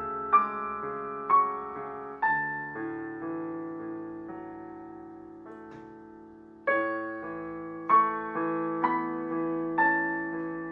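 Solo piano playing a slow, gentle piece. A chord rings on and fades for several seconds in the middle, then single notes start again.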